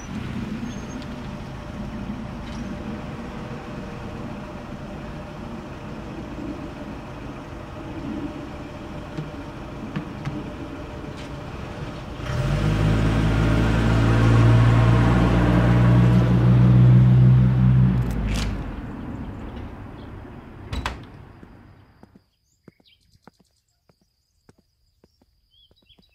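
USPS Grumman LLV mail truck running as it drives up, much louder and steadier for several seconds while it sits close by at the mailbox, then pulling away and fading out. A single sharp knock comes just before it dies away.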